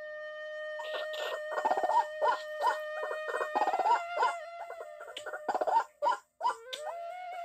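White-breasted waterhen (dahuk) calling: a rapid run of short repeated calls, about three a second, that breaks off briefly near the end and starts again. Sustained, flute-like background music tones play underneath.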